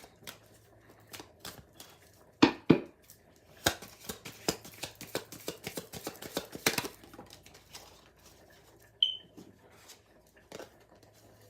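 A deck of affirmation cards being shuffled and handled: irregular crisp snaps and flicks, busiest in the middle, then a few single taps, with a brief high squeak about nine seconds in.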